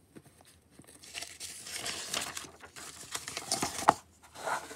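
Paper page of a comic book rustling and crinkling as it is turned by hand, with a sharp tap a little before the end.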